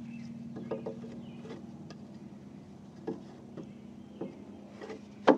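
Wooden test piece being fitted into the joint cut in a timber rafter: scattered light wooden knocks and clicks, with one sharp knock a little after five seconds in as it seats. A steady motor hum runs underneath.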